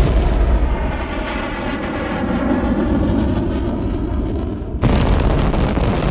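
Explosions: a sudden heavy blast followed by a long, deep rumble, then a second blast about five seconds in.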